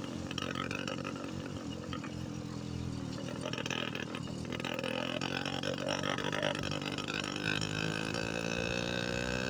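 Small motorbike engine running under way while riding, its pitch rising a little near the end. The bike is running with its exhaust taken off.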